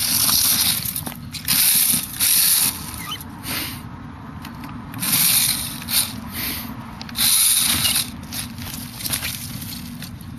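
Xmod mini RC truck's small electric motor and gears whining in repeated bursts of throttle, about one a second or two, with its tyres rustling over dry leaves.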